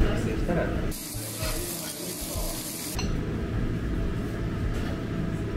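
Pork belly sizzling on a hot tabletop grill plate: a bright hiss that starts suddenly about a second in and cuts off about two seconds later. A steady low room rumble runs before and after it.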